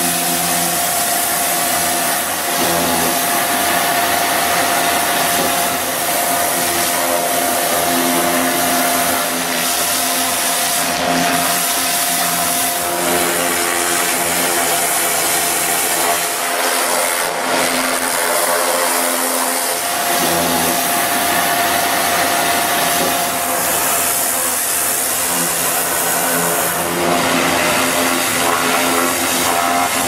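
Pressure washer running steadily: a dense hiss of the high-pressure water jet blasting concrete residue off a heavy machine's body, over the constant whine and hum of the washer's engine and pump.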